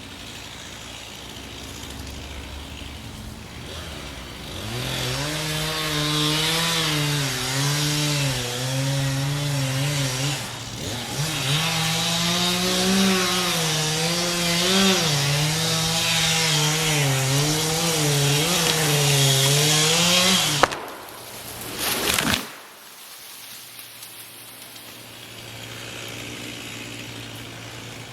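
Chainsaw cutting into a tree. The engine note wavers up and down under load, drops briefly partway through, then cuts off, followed a moment later by a short loud burst.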